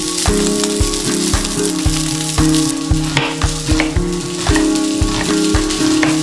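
Food sizzling as it fries in a pan, over background music with a steady beat.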